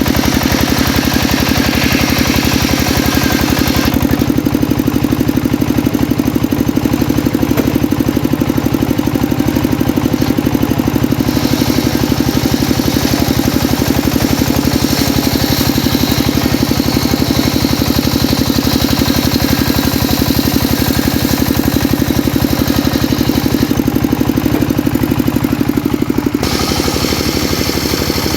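Homemade circular saw running with a steady engine drone, its sound shifting a few times as the blade cuts through mahogany.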